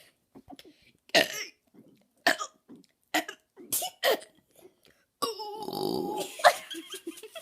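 A girl forcing out burps: several short, sharp ones, then one long, low burp lasting over a second about five seconds in.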